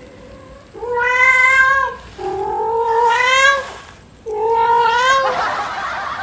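A domestic cat meowing loudly three times in long, drawn-out calls. The second call rises in pitch and the third ends rough and hoarse.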